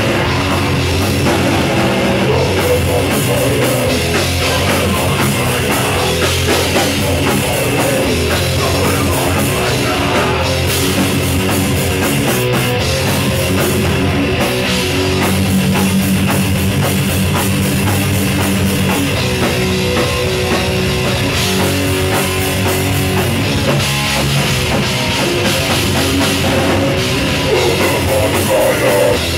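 A punk band playing loud and live, with distorted electric guitar and a fast-pounding drum kit, dense and unbroken throughout.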